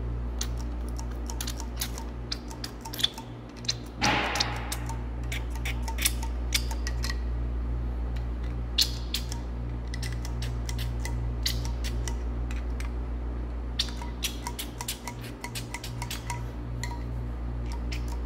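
Hand-pump oil can clicking as it is pumped to oil the rocker parts, with scattered light metal clinks and a short hiss about four seconds in; the can is running low on oil. A steady low hum sits underneath.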